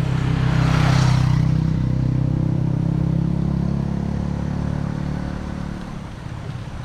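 A motorcycle engine running steadily as it passes close by. It is loudest about a second in and then fades away over the next few seconds.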